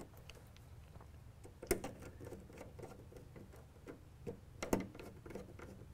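Faint scattered clicks and ticks of a precision screwdriver and wire leads working a small terminal strip, tightening CT leads into the meter's terminals. The sharpest clicks come a little under two seconds in and as a pair just before five seconds, over a faint low hum.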